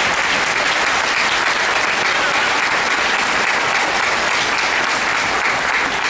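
Large audience applauding steadily: dense, even clapping from many hands.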